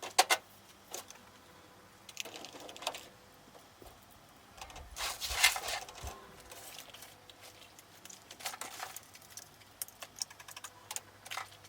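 Scattered light clicks and taps of small objects being handled and set down while tidying, with a brief louder rustle about five seconds in.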